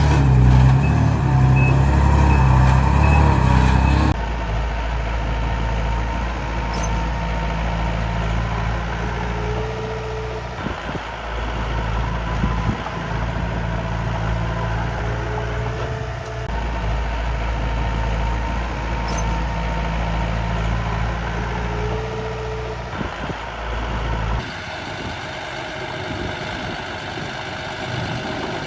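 Miniature remote-controlled dump truck and bulldozer running, a steady mechanical drone. It changes abruptly about four seconds in and again near the end.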